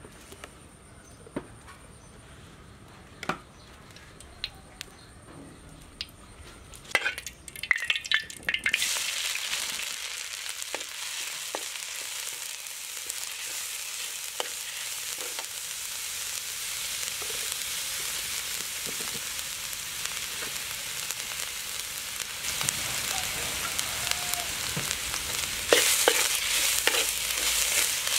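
Yellow paste frying in hot oil in a metal wok: a few light taps at first, then about nine seconds in a steady sizzle starts suddenly, with a metal spatula scraping and tapping against the pan. The sizzle and scraping grow louder near the end.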